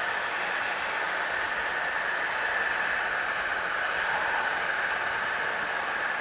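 Electric heat gun running steadily, an even blowing hiss, as it heats the foam adhesive holding a roof support beam to the van's sheet-metal roof.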